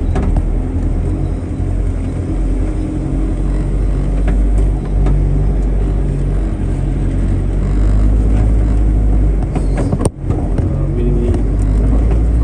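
A car's engine and tyre noise from inside the moving vehicle: a steady low rumble, with a brief break about ten seconds in.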